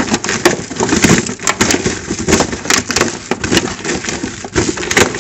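Raw sweet potato sticks tossed and mixed by hand in a plastic bowl: an irregular clatter of the pieces knocking against each other and the bowl, with a rustle.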